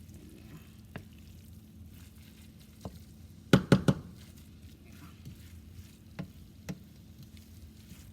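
Saltfish and tomato sauce being stirred in a pan, with scattered utensil clicks against the pan and four quick, loud knocks about three and a half seconds in.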